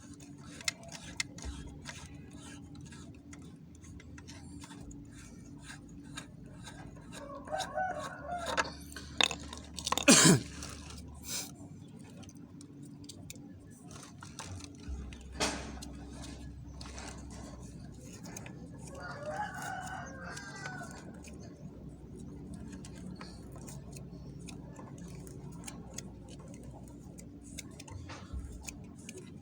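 A rooster crowing twice, about seven and about nineteen seconds in, over scattered clicks and knocks. The loudest sound is a short screech falling sharply in pitch about ten seconds in.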